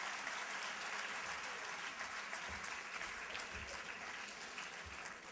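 Auditorium audience applauding, steady clapping that slowly fades toward the end.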